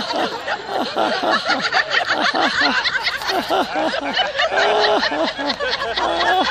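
A group of women laughing out loud in quick repeated 'ha-ha-ha' syllables, several voices overlapping. This is deliberate laughter-yoga laughter, made on purpose as an exercise.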